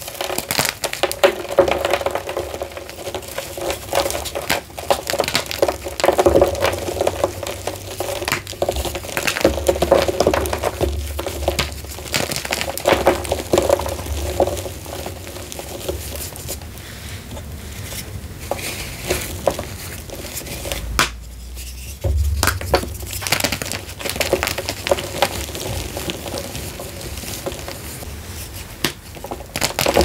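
Hands breaking and crumbling blocks of soaked-then-dried gym chalk: a dense, irregular run of dry crunches and crackles as the chalk gives way and falls apart, with a short lull about two-thirds of the way through.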